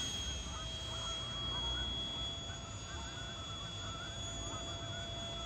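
64 mm electric ducted fan of a cardboard-and-foam RC Eurofighter Typhoon whining steadily as the jet flies overhead, its high pitch sagging slightly, over a low rumble.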